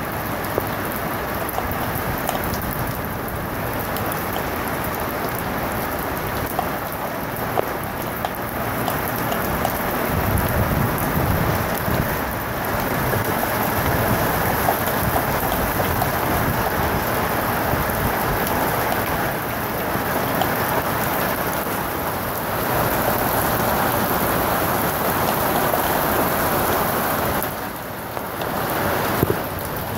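Heavy rain and hail falling on paving and puddles: a steady rush of water with many sharp little impacts. A low rumble of thunder swells about ten seconds in.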